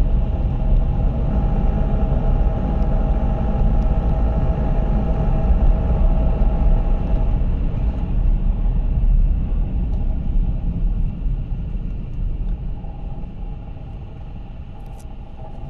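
Suzuki Alto engine running with a rattle from the engine bay, the excessive noise it has at idle that gets louder with revs. It is louder for the first half, then eases off gradually.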